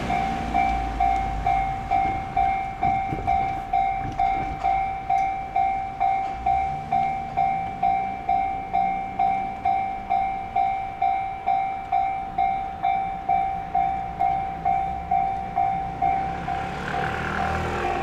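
Japanese railway level crossing warning bell ringing, a steady electronic ding repeating about twice a second while the crossing is closed for an approaching train. Near the end a rushing noise grows louder as the train draws near.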